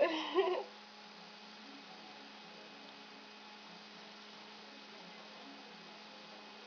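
A brief voice sound right at the start, then a steady low electrical hum with a faint hiss behind it.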